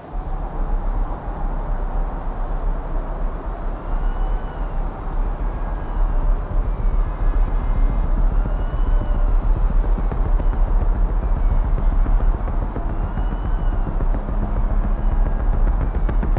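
Steady, low rumbling city ambience of distant traffic, heard from high above the streets. Faint short high tones that rise and fall come back every few seconds.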